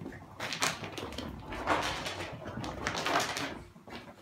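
A Maine Coon cat and a Chihuahua play-fighting on carpet: scuffling, rustling and soft bumps in about three bursts, the loudest a little before the middle.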